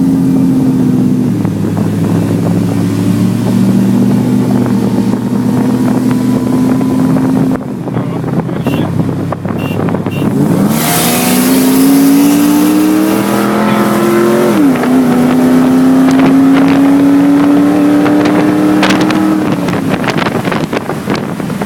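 Car engine at a steady cruise, then at full throttle from about ten seconds in, revving up through a gear, shifting up sharply a few seconds later and pulling hard again before backing off near the end: a roll-race launch from about 40 mph.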